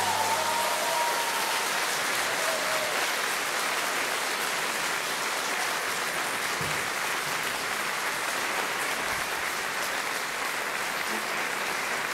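Audience applauding steadily. The last held notes of the music die away in the first couple of seconds.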